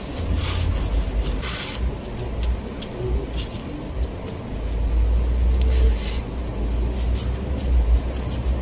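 A rag and gloved hand wiping and handling around a car's gearbox drain plug, giving scattered short rubs, clicks and hisses over a steady low rumble that grows louder about halfway through.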